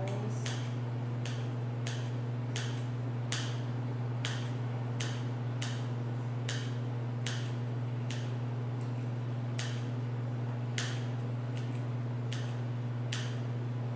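Khubz flatbread being torn into small pieces by gloved hands over a stainless steel pot, a crisp tick-like tear about every half second to second, over a steady low hum.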